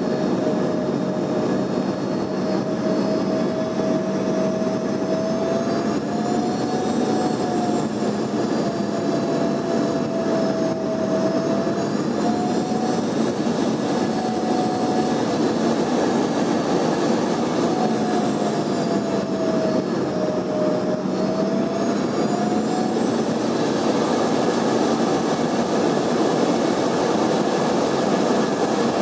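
Cabin noise of an Embraer ERJ-145 airliner on approach with flaps out: a steady rush of air and engine noise from its rear-mounted Rolls-Royce AE3007 turbofans. An engine whine wavers slowly up and down in pitch and drops away about six seconds before the end.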